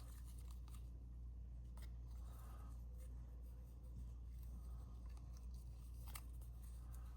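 Faint handling of card-stock paper pieces, with a few soft taps, over a steady low hum.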